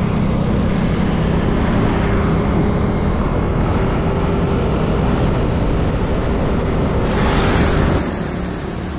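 Wind rushing over the microphone and a Yamaha Aerox 155 scooter's engine running steadily while riding at speed on the road. The noise changes abruptly about seven seconds in.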